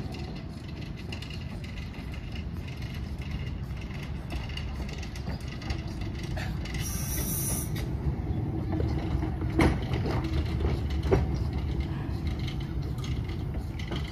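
Small narrow-gauge field-railway steam locomotive running past on its track: a steady low rumble that grows louder as it nears. A brief high squeal comes about seven seconds in, and two sharp knocks follow a second and a half apart.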